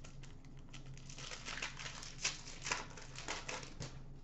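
A trading-card pack wrapper being torn open and crinkled by hand: a quick run of short crackles and rips, loudest about two seconds in, over a faint steady low hum.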